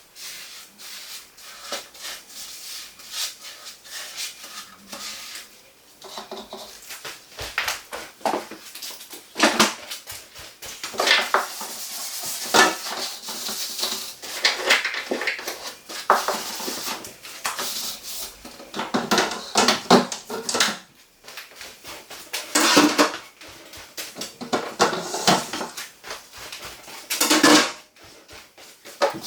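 Items clattering and knocking, mixed with rubbing and wiping, as a refrigerator's shelves and contents are handled and cleaned out. The knocks come irregularly, with the loudest ones scattered through the second half.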